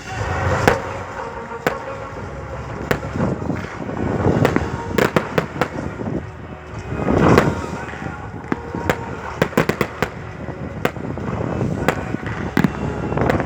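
Fireworks going off: a fast scatter of sharp cracks and bangs, with louder booming bursts about half a second, four and a half and seven seconds in.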